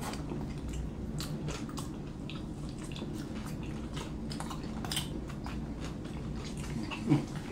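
Close-miked eating: chewing, wet mouth clicks and lip-smacking as fried barbecue chicken is bitten and fingers are licked. The clicks come in an irregular scatter over a steady low hum.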